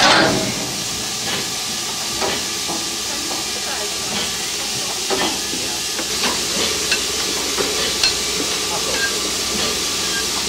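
Steady steam hiss from a narrow-gauge steam locomotive standing at rest, with scattered short metallic clinks and knocks; the loudest knock comes right at the start.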